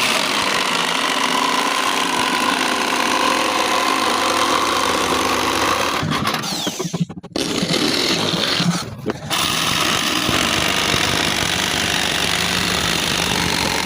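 Power woodworking machine running and cutting wood: a loud, steady, noisy whine that breaks off briefly twice, about seven and nine seconds in.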